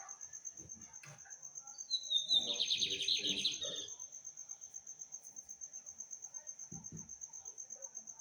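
A seedeater sings one fast, trilled phrase about two seconds in, lasting roughly two seconds and opening with a short falling note. A continuous high-pitched insect trill runs underneath.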